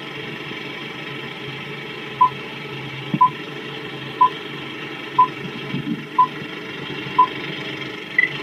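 Film-leader countdown sound effect: six short, high beeps one second apart, then a single higher-pitched beep near the end, over a steady hiss with a couple of faint pops like old film noise.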